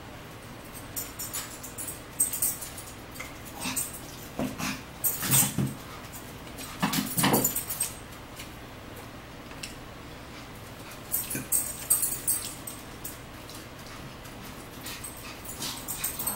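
A dog whimpering several times, with clicks of forks on plates between.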